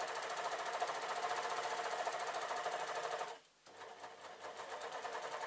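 Overlocker (serger) running at a steady fast stitching rate as it sews a seam through jacket fabric. It stops about three seconds in and starts again a moment later, somewhat quieter.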